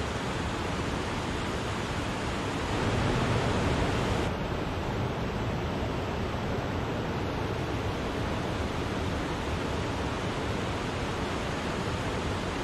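Wachirathan Waterfall's falling water rushing steadily. It swells a little a few seconds in and turns slightly duller after a sudden change about four seconds in.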